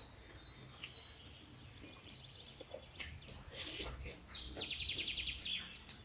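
Close-miked eating sounds, scattered mouth clicks and chewing smacks, with short high bird chirps in the background and a rapid bird trill about five seconds in.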